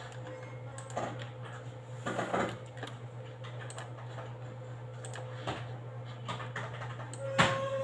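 Scattered clicks from a computer mouse and keyboard being worked at a desk, a few single clicks and a short cluster, the loudest near the end, over a steady low hum.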